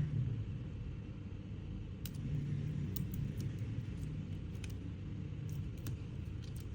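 Low steady background rumble with faint, scattered small clicks of tools handling the phone's parts as the sticky antenna flex is worked loose.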